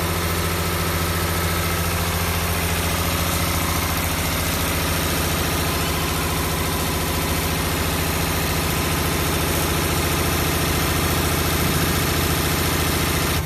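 Six-spindle CNC needle winding machine running, its needles stroking rapidly as they wind wire onto brushless-motor stator cores: a steady mechanical drone with a fast, even rhythm.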